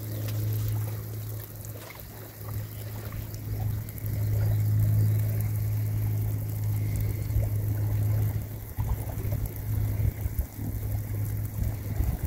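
Light rain falling on a river and sandy bank, a soft patter with small scattered drops, over a steady low hum.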